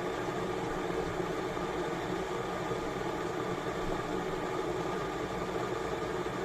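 BLACK+DECKER KE1518SD stainless-steel electric kettle heating water, a steady, even noise that does not change.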